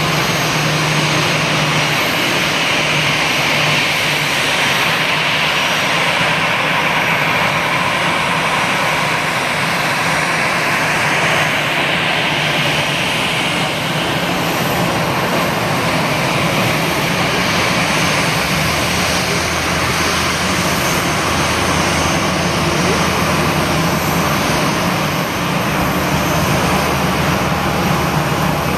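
An Airbus A320-216 airliner's CFM56 turbofan engines running as it taxis: a steady jet whine over a low hum.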